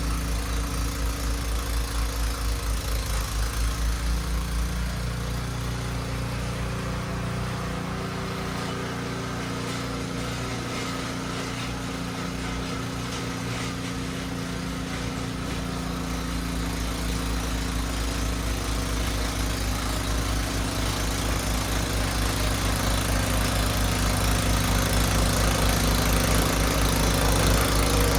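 Husqvarna gas snow blower engine running steadily while clearing deep snow, a little quieter in the middle and growing louder toward the end.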